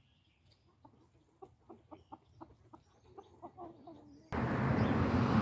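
Chicken clucking softly in a quick series of short calls, about three a second. A little after four seconds in, a steady rushing background noise cuts in abruptly and becomes the loudest sound.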